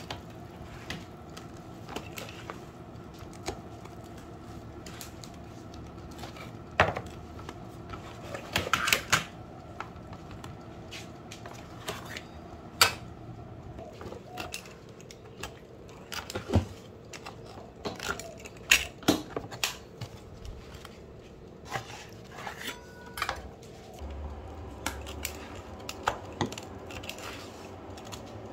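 A metal pizza cutter wheel rolls through a baked pizza on a wooden cutting board, with many sharp clicks and knocks of metal utensils against the board and the aluminium tray. A faint steady hum lies underneath.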